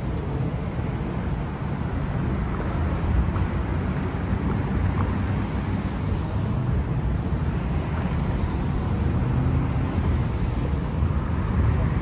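Steady city street traffic noise: cars passing close by with a continuous low rumble of engines and tyres.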